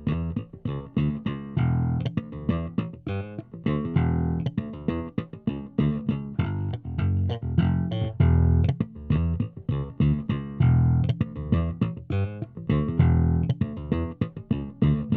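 Electric bass guitar played through an SWR Working Pro bass amplifier, a busy line of quick plucked notes with a heavy low end, demonstrating the amp's Bass Intensifier circuit, which boosts the low frequencies while compressing them.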